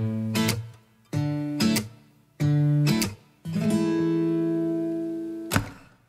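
Background music: strummed acoustic guitar chords separated by short pauses, one chord about three and a half seconds in left ringing for about two seconds before a quick strum near the end.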